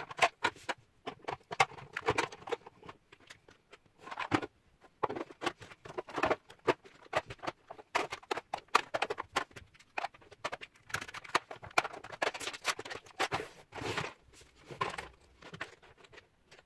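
Plastic makeup containers and compacts clicking and clattering as they are picked up, set down on a wooden floor and packed into a clear plastic organizer; irregular knocks and taps throughout.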